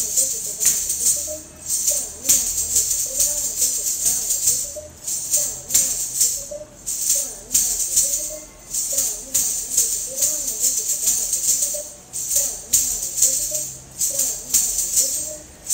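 Ghungroo ankle bells jingling in rhythmic Kathak footwork, bare feet stamping in an even pulse, over a wavering melodic accompaniment.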